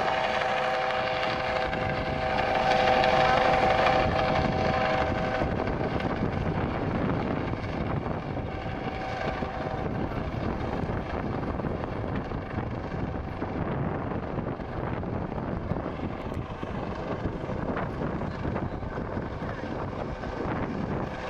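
US Coast Guard MH-65 Dolphin helicopter hovering and flying low: steady rotor and engine noise with a whine in it. The whine is strongest for the first five seconds, then fades as the sound slowly grows fainter.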